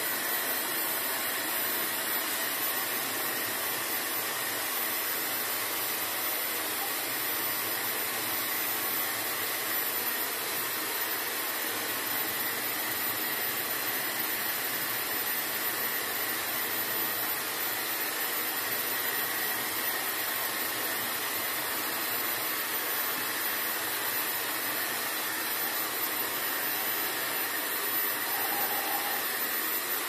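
Coshare Essence Ring hair dryer running steadily on low fan speed and medium heat: an even rush of air with a faint steady whine.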